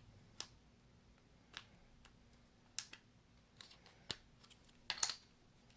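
A handful of short, sharp clicks at irregular intervals: the suction-cup opening tool and the iPhone SE's screen being handled and pried up during a battery replacement.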